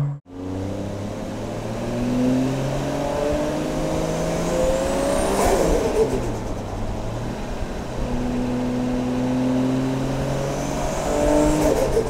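Toyota Chaser Tourer V's turbocharged 1JZ inline-six accelerating hard: the engine pitch climbs steadily with a faint rising turbo whistle, breaks about halfway with a burst of turbo flutter as the throttle closes, dips, then climbs again to another break near the end.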